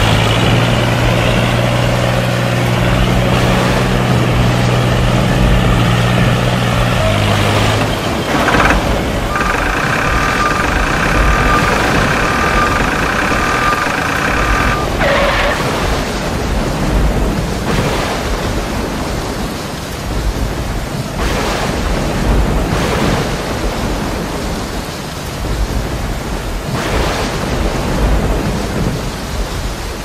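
Loud, steady vehicle rumble, like a tractor engine running as the tractor drives. A low held tone sounds over it for about the first seven seconds, and a higher held tone from about nine to fifteen seconds.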